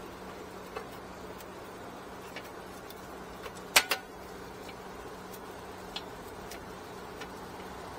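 Light scattered clicks of tools and parts being handled during hands-on work on a wheel hub assembly, with a sharper double knock about halfway through, over a steady low hum.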